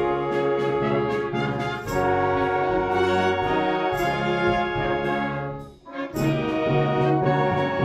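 Youth wind band playing sustained brass chords with regular percussion strokes. The band breaks off for a moment about two-thirds of the way through, then comes back in.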